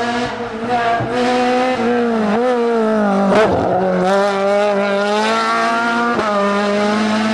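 Renault Clio rally car's engine revving hard through a tight bend, its pitch dipping and climbing again several times, with a few short sharp cracks.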